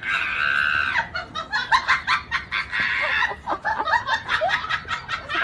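A person's loud, high-pitched cackling laughter, drawn out and broken into rapid bursts.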